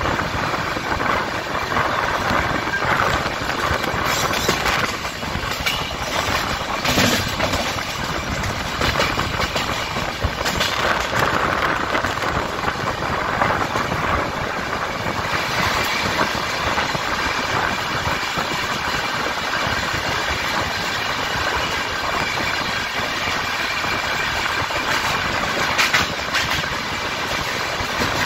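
Running noise of an express passenger train heard from an open coach door: the steady rumble and clatter of steel wheels on the track, with wind. A few sharper clanks stand out, one of them close to the end.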